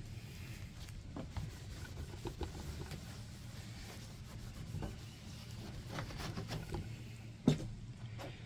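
Rag rubbing over a fiberglass gel-coat surface, wiping off lacquer thinner: a faint, soft scuffing with small clicks, and one sharp tap about seven and a half seconds in.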